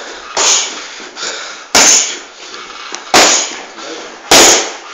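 Boxing gloves smacking into focus mitts during pad work: four sharp punches, about one every second and a half, with the last three the loudest, each ringing briefly in a small room.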